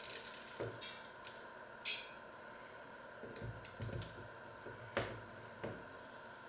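A small canister of dry rice being handled: two short rustling rattles of grains in the first two seconds, then a few dull knocks and two sharp clicks of the container.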